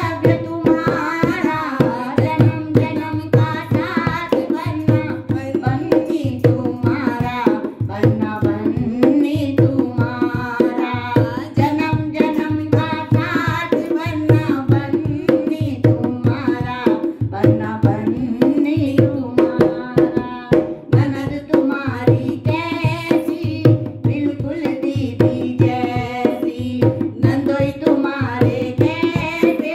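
Two women singing a North Indian wedding folk song (banna-banni geet) to a steady dholak beat, the two-headed barrel drum played by hand.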